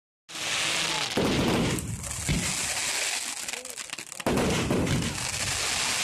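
Fireworks display going off: dense crackling from many small bursts, with heavier bangs coming in suddenly about a second in and again just past four seconds.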